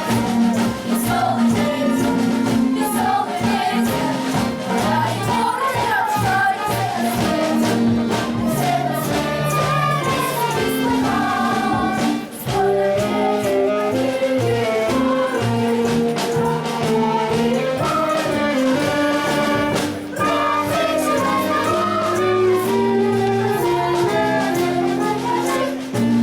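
A choir singing a song over instrumental accompaniment, with a steady bass line and a regular beat.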